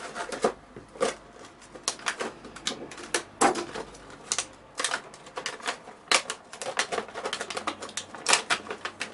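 Clear plastic packaging crinkling and crackling in many irregular sharp snaps as hands pull plastic blister trays of miniatures out of a cardboard box.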